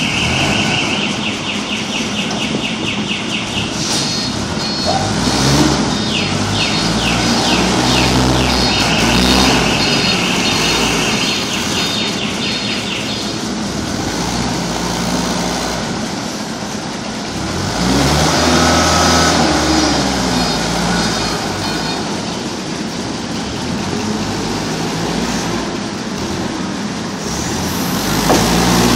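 Linde forklift engine running and revving up and down as the truck manoeuvres and lifts paper rolls with its clamp. Through the first half there is a high, rapidly pulsing tone.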